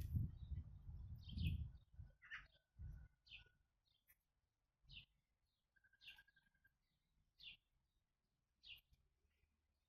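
Bird chirping: short high chirps repeating about once a second, with two longer thin whistled notes. A loud low rumble fills the first second and a half.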